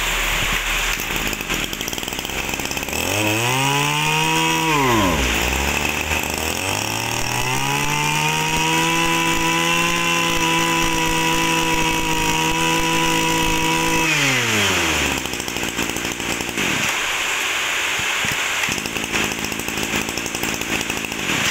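Echo Kioritz 265 brush cutter's 26cc two-stroke engine revved briefly and dropped back, then throttled up and held at a high, steady pitch. About two-thirds of the way through the throttle is released and the engine winds down until its note is gone.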